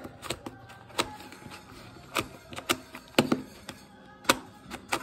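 Plastic Puppet Cube 2 twisty puzzle being turned by hand: sharp, irregular clicks and clacks of its layers snapping round, about ten in all, some in quick pairs.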